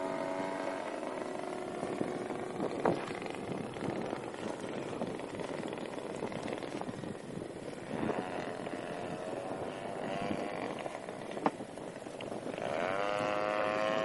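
Engine of a Chip Hyde Vision 3D aerobatic RC plane. Its steady note fades away in the first second, leaving a faint, noisy stretch with a couple of sharp knocks. About 12.5 s in, the engine's note rises steeply and holds high, as when the throttle is opened.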